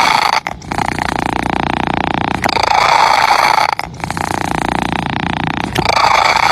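Domestic cat purring, a continuous rumble that swells and eases in turn with the cat's breathing, about once every three seconds.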